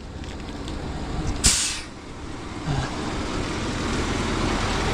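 Tow truck's engine running, with a brief loud hiss about a second and a half in; the engine then grows gradually louder.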